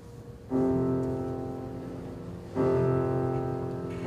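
Grand piano playing slow sustained chords: the first is struck about half a second in and the second about two seconds later, each left to ring and fade.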